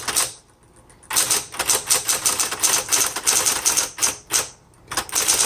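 Smith Corona Coronet Automatic electric typewriter being typed on: quick runs of clacking typebar strikes, with a short pause near the start and another near the end.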